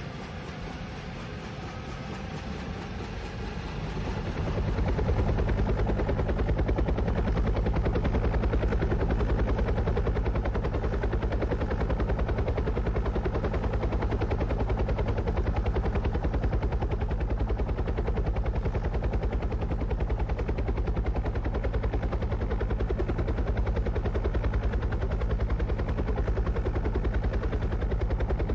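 Wind buffeting the action camera's microphone as the paraglider takes off: a loud, steady, rapidly fluttering low rumble that swells about four seconds in as the glider gains airspeed and then holds.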